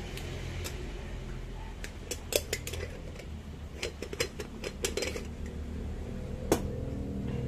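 Metal parts of a moka pot handled and separated by hand: scattered light metallic clicks and clinks as the filter funnel and upper chamber come apart, over a steady low hum.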